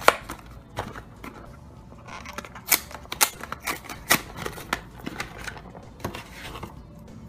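Cardboard Kinder Surprise egg box being torn open and handled by hand: an irregular run of sharp paperboard snaps, clicks and rustles, the loudest at the very start.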